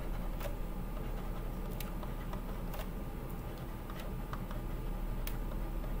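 Steady low hum and hiss of an open computer microphone, with faint scattered clicks and taps, about one a second.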